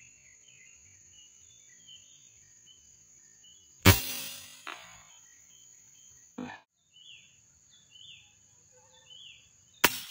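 Two sharp shots from an air rifle, one about four seconds in and one just before the end, over a steady high-pitched drone with faint falling chirps.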